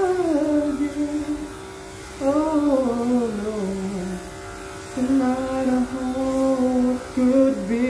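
Background song: a solo voice sings phrases that hold notes and slide between them, with short breaks between phrases, over a steady low hum.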